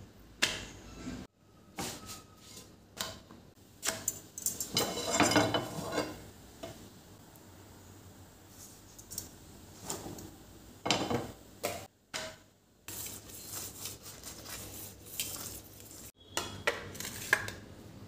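Kitchen handling sounds: scattered clinks and knocks of steel utensils and cookware, with a denser patch of clatter about four seconds in, breaking off sharply a few times.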